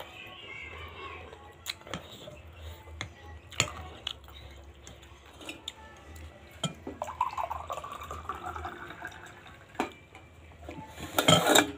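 Eating sounds from a bowl of meatball soup: a spoon clicking against the ceramic bowl and wet mouth sounds, with short knocks throughout. A drawn-out wavering call comes in about seven seconds in, and a loud harsh burst comes near the end.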